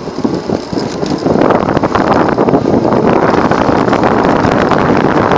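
Wind buffeting the microphone and road rumble from a small electric scooter being ridden, with the rushing growing louder about a second in and staying loud, flecked with short knocks and rattles.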